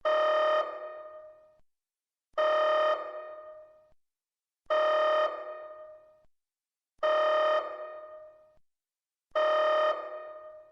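Synthesized electronic alert tone sounding five times, about every two and a half seconds. Each is a steady, buzzy tone held about half a second that then dies away in an echo, signalling the start of a priority red alert broadcast.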